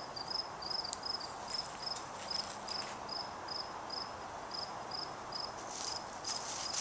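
A cricket chirping steadily, about two short high chirps a second, over a faint hiss, with light rustling near the end.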